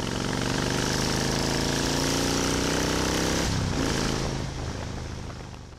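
Motorcycle engine revving up, its pitch climbing steadily for about three and a half seconds, then dropping back and fading out.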